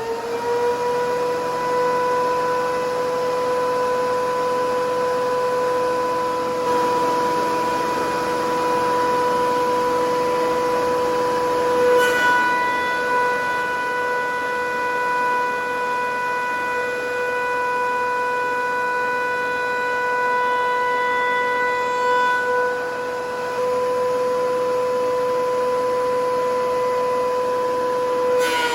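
DeWalt DW735X thickness planer running with a loud, steady whine. There is a short sharp knock about twelve seconds in, and the pitch dips slightly near the end.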